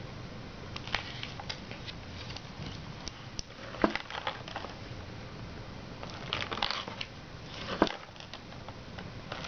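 Pages of a hardback pop-up book being handled and turned: sharp clicks and taps of board pages, with paper rustling and crinkling as the folded pop-ups open. The loudest clicks come near the middle and near the end.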